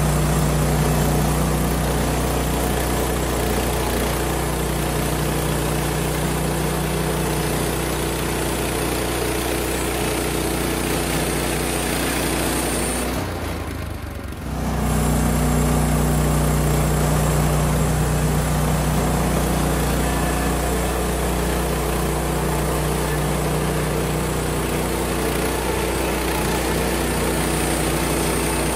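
Woodland Mills HM130MAX portable bandsaw mill's engine running steadily as the band blade cuts through a squared log, with a short dip and break in the sound about halfway through.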